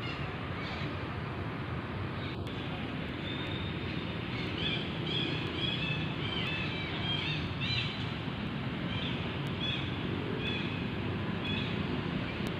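Outdoor ambience: a steady low noise throughout, with a run of short, high chirps starting about four and a half seconds in and coming on and off until near the end.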